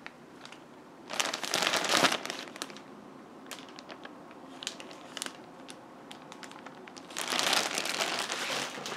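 Clear plastic wrapping crinkling as it is handled and pulled at, in two loud spells, about a second in and again from about seven seconds in, with scattered crackles between.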